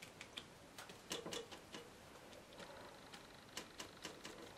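Paintbrush dabbing acrylic paint onto a painting board: faint, irregularly spaced ticks and taps.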